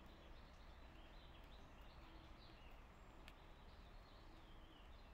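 Near silence: faint outdoor ambience with small birds chirping faintly in the distance, and one faint tick about three seconds in.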